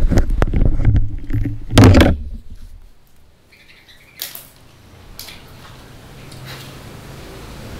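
A low rumble with knocking that fades out about two seconds in, then a few sharp snips and clicks of scissors working on a rubber fuel hose.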